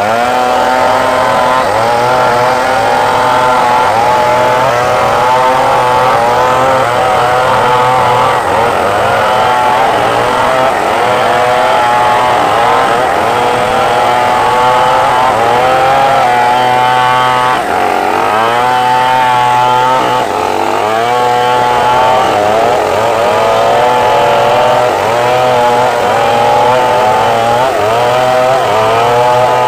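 Two Stihl two-stroke chainsaws, one of them a Stihl 381, running at full throttle while rip-cutting a large log lengthwise, their engine notes overlapping and wavering up and down in pitch under the load of the cut.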